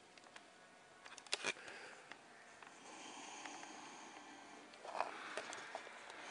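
Faint handling noise of a handheld camera: a few scattered clicks and rustles, with a soft hiss in the middle.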